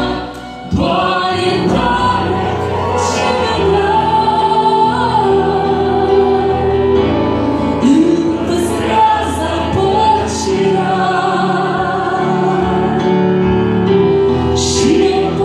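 A woman singing a slow Romanian Christian worship song into a handheld microphone, with musical accompaniment, holding long notes. There is a brief break between phrases just after the start.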